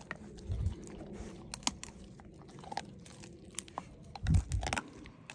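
A puppy chewing and crunching on something with its teeth: irregular crackling bites, with two low thumps about half a second in and near the end.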